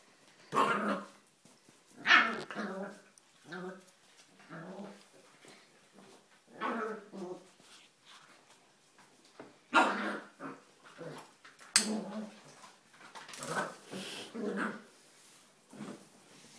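Pembroke Welsh Corgi barking and growling in play, in short bursts one to three seconds apart.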